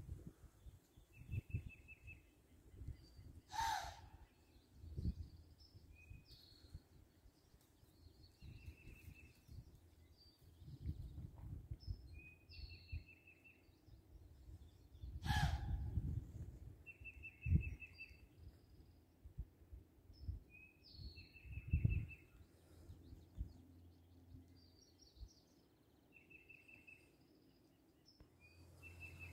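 Songbirds singing in spring woods: a short, rapid trill repeated every couple of seconds, with higher chirps between. Two sharp, loud sounds come about four seconds in and again about fifteen seconds in, over scattered low rumbles on the microphone.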